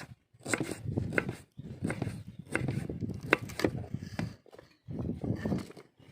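Knife cutting vegetables on a wooden board: irregular knocks with rubbing and scraping, in short stretches broken by brief silences.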